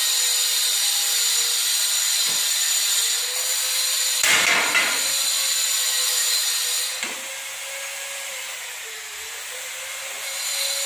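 Aluminium frame tubing handled on a concrete floor: a few light knocks and a short scrape about four seconds in, over a steady hiss and hum.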